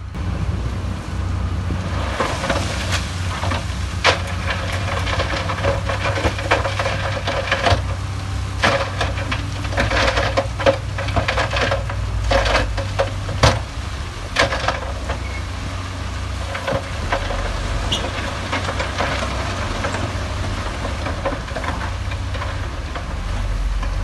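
Heavy diesel earthmoving machinery running with a steady low engine drone. Rattling, clattering knocks of rock and metal come thickly from about two seconds in to about fifteen seconds, then thin out while the engine keeps running.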